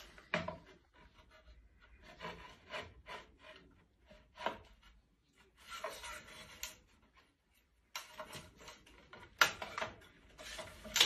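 Ceramic tile being slid and set on a manual rail tile cutter: irregular scrapes and rubs of the tile on the cutter's plastic bed, with short pauses, and a couple of sharper knocks near the end.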